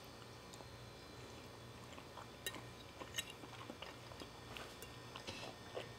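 Soft, wet chewing of a mouthful of ravioli, close to the microphone: scattered small clicks and smacks with brief pauses.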